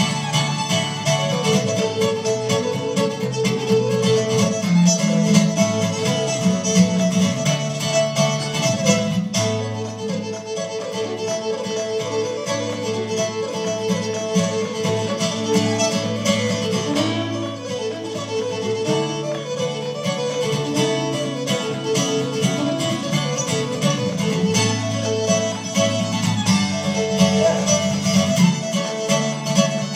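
A fiddle and an acoustic guitar play a fast Irish reel together: the fiddle carries the running melody while the guitar strums rhythm chords underneath.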